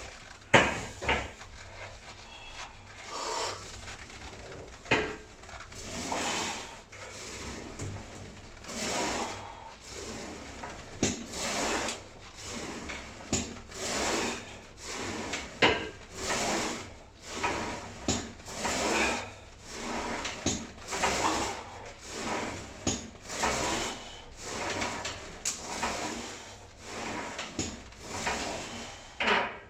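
Leg press sled sliding back and forth on its rails through repeated reps, a rubbing slide with a knock at each turn, about one stroke every second or two.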